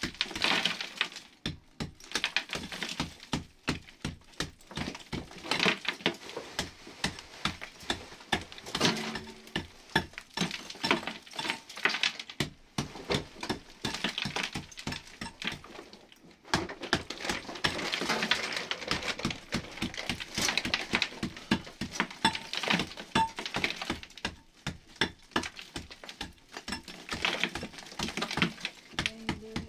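Rapid, irregular tapping and knocking, several sharp strikes a second, with a few short breaks.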